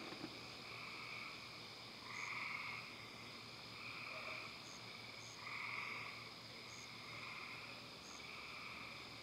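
Frogs calling: about six short calls, each under a second, repeating every one to two seconds, over a steady high-pitched insect hum.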